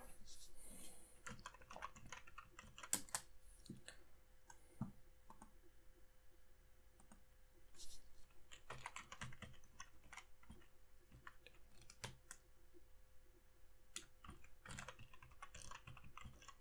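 Faint typing on a computer keyboard, in short runs of keystrokes with pauses between them.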